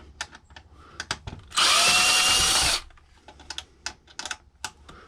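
Power drill running for about a second, from about one and a half seconds in, backing a screw out of a karaoke machine, with a steady whine that drops off as it stops. Small clicks of handling come before and after it.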